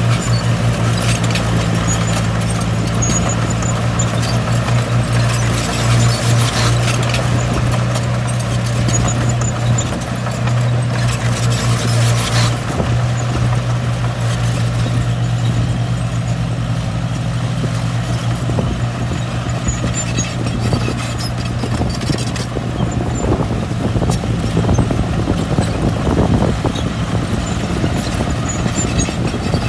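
Heavy earthmoving machine's diesel engine running steadily at work, with irregular knocks and rattles that grow busier in the second half.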